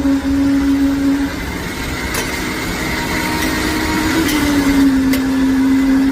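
An engine or motor running steadily with a constant hum that dips slightly in pitch midway, and a few sharp knocks over it.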